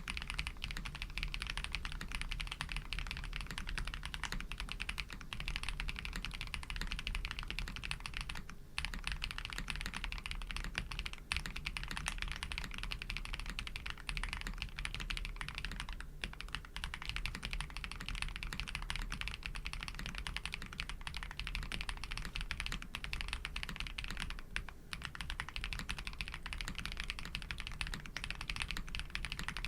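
Continuous typing on a Tiger Lite 80 custom mechanical keyboard with Krytox-lubed Pado v2 switches, a polycarbonate plate, full foam and GMK keycaps: a dense, steady run of keystroke clacks broken by a few brief pauses.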